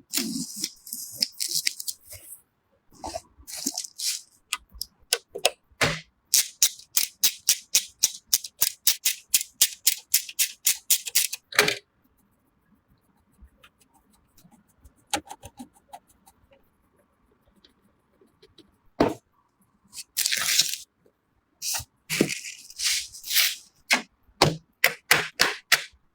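Computer parts being assembled: runs of sharp clicks and snaps, at times about four or five a second, with a quiet stretch in the middle and a few brief hissing scrapes near the end.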